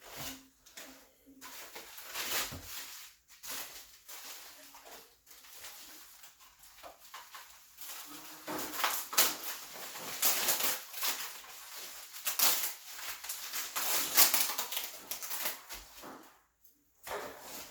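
Packaging being handled while an electric bike is unboxed: irregular rustling and scraping, busiest and loudest in the second half, with a short pause near the end.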